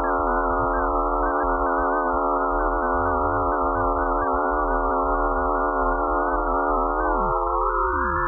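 Eerie electronic drone of many stacked, slightly wavering steady tones, presented as a sonification of Pluto's magnetic field and radio waves, over a low rumble. Near the end, some tones glide downward while others rise.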